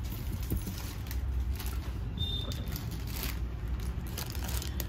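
Soft rustling and light handling clicks over a steady low background rumble, with a brief faint high tone about two seconds in.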